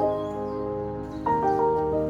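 Gentle background music: soft sustained piano-like notes, with a new chord struck about a second and a half in.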